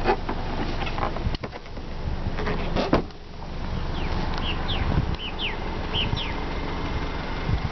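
The tailgate of a 2008 Honda Civic Type S is handled with a few knocks, then shut with a loud thump about three seconds in. Several short, falling bird chirps follow, over a steady low rumble.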